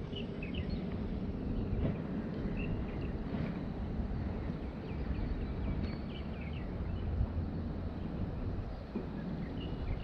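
Steady low outdoor rush with short, scattered bird chirps over it.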